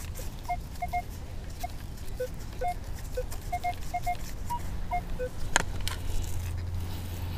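Minelab Equinox 600 metal detector, set to five tones, giving short scattered beeps at several different pitches as its coil sweeps over targets. A single sharp click comes a little after five seconds in.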